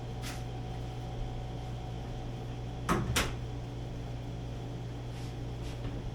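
Accuair air-suspension system switched on for the first time: a steady low hum from its compressor, with two sharp clunks close together about three seconds in.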